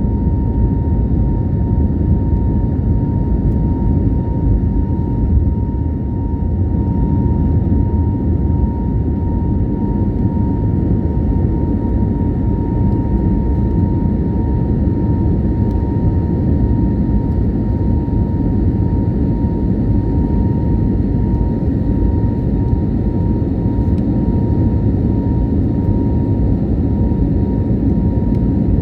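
Airliner jet engines and airflow making a steady, loud rumble, with a thin steady whine running through it.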